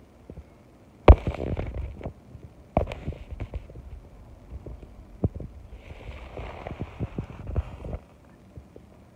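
Handling noise on a phone's microphone: a loud thump about a second in, then knocks and scraping rustle that stop about eight seconds in.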